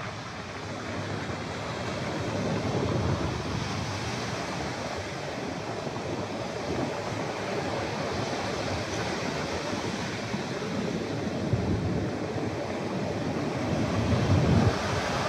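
Surf breaking close by and washing up a sandy beach in a steady rush, swelling louder just before the end. Wind rumbles on the microphone.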